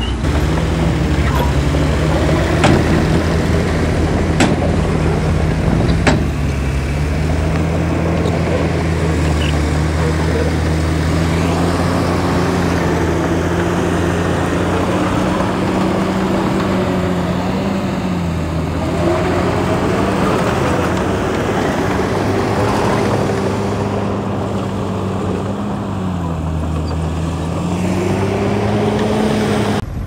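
Diesel engine of heavy earthmoving machinery running steadily under load, its pitch dipping and rising again a couple of times. Three sharp knocks come in the first six seconds or so.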